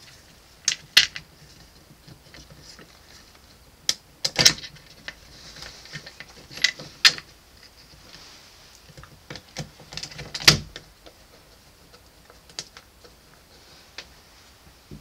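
Irregular clicks and taps of stainless steel screws and fingers knocking against the plastic mounting plate of a shower valve as the screws are fitted by hand, the loudest knocks about four and a half and ten and a half seconds in.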